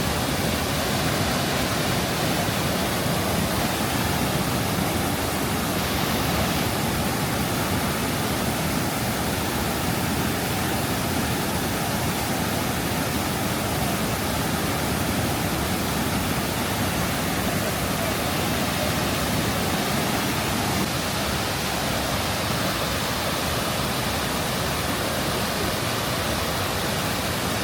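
Steady rush of falling water from a small waterfall, an even unbroken roar.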